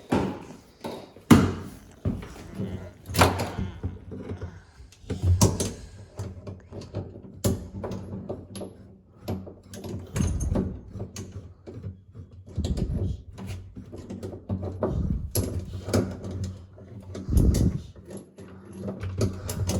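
Irregular knocks, clicks and dull thuds of hands fitting and threading a shift knob onto a car's gear shifter.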